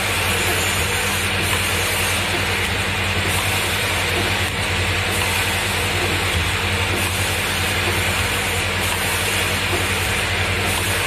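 Automatic plastic twist-cap assembly machine running: a loud, steady mechanical hum and hiss from its vibratory bowl feeder, indexing turntable and pneumatics, without a break.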